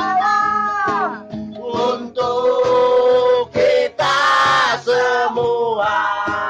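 Men singing a song to a strummed acoustic guitar, with one loud, rough-voiced note about four seconds in.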